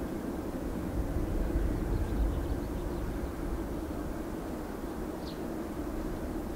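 Distant GE GEnx turbofans of a Boeing 747-8 freighter, a steady low rumble as the jet rolls along the runway.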